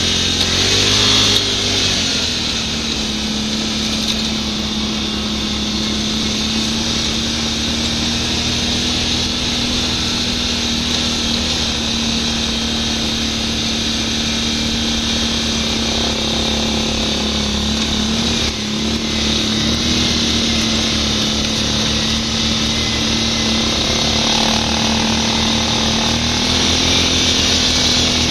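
Quad (ATV) engine running steadily under way, with a brief rise in revs about a second in and another rise near the end.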